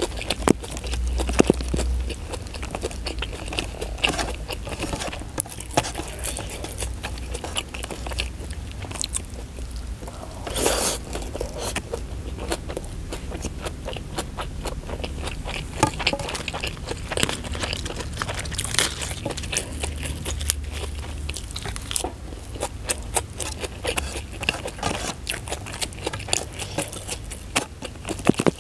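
Close-miked chewing and biting on a mouthful of rice, omelette and raw sambal matah (chopped chilies and shallots), with crunching and many small wet mouth clicks.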